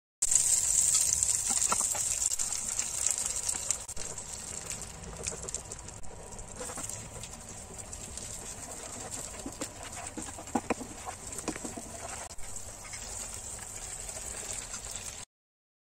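Sauce sizzling in a hot frying pan as it is stirred with a spatula, loudest in the first few seconds and then settling to a softer, steady sizzle with light scraping clicks. A few short squeaks come about two-thirds of the way through.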